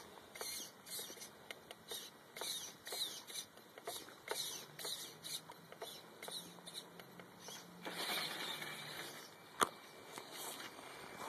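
Radio-controlled scale crawler truck creeping over gravel: its small electric drive motor whines in short bursts that glide up and down in pitch as the throttle is blipped, with tyres crunching on gravel about eight seconds in and a single sharp click just after.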